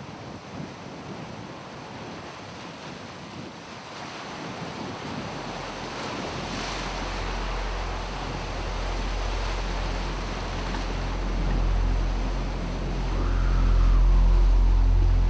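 Lake waves washing and breaking over a rocky shore, with wind. A deep, steady drone fades in about a third of the way through and swells louder toward the end.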